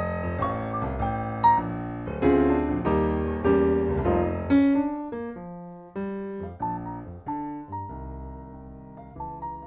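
Background piano music: single notes and chords struck at an unhurried pace, each ringing and dying away.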